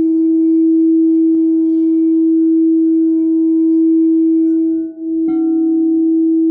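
Crystal singing bowls: one bowl sings a loud, steady, sustained tone with faint overtones. About five seconds in the sound dips for an instant, then a mallet strike sets a second bowl ringing at a slightly lower pitch alongside the first.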